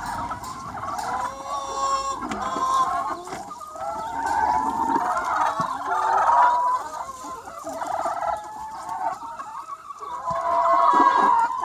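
A large free-range flock of chickens, about 200 hens, clucking and calling over one another without a break, with the calls swelling louder near the middle and again near the end.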